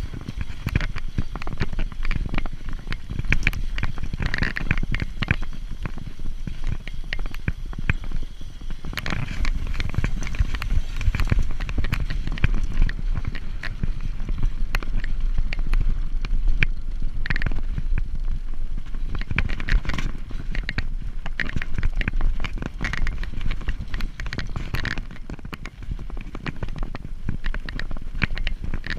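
Mountain bike ridden fast over a bumpy grass and dirt trail: continuous rattling and clicking from the bike over the rough ground, with a low wind rumble on the rider's camera microphone.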